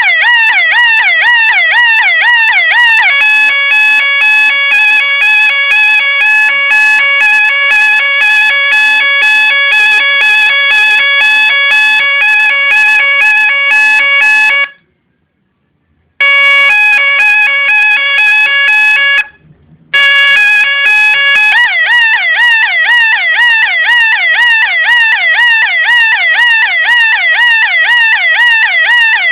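PIC-microcontroller electronic police siren cycling through its tones. It starts with a fast rising-and-falling yelp, then switches to a rapid two-tone alternation that cuts out twice for a second or so. After a brief steady tone, the fast yelp returns and runs on.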